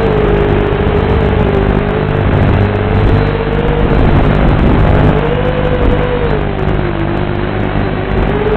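FPV quadcopter's brushless motors and propellers whining in flight, picked up by the video transmitter's built-in microphone and carried over the analog video link. The whine's pitch sinks and rises several times as the throttle changes.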